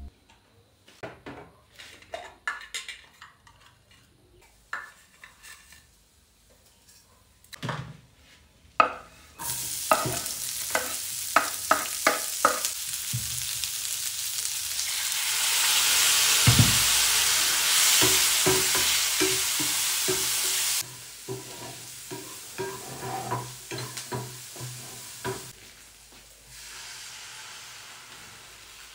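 Cooking sounds: scattered knocks and clicks of utensils, then food sizzling in a hot pan for about ten seconds with a spoon clinking and stirring in it. The sizzle cuts off suddenly, and more clinks and knocks follow.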